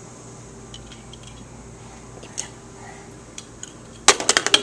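A few faint scattered ticks, then near the end a quick loud clatter of about eight sharp knocks in half a second: a hard object rattling on a plastic high-chair tray.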